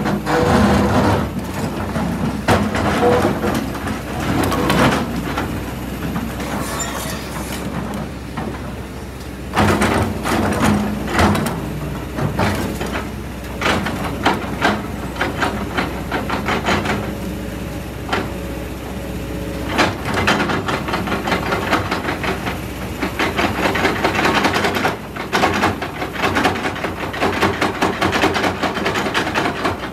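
Kobelco hydraulic excavator running, its diesel engine and hydraulics working under load, while the steel bucket scrapes and knocks against a large boulder and loose rock, with frequent clattering of stone throughout.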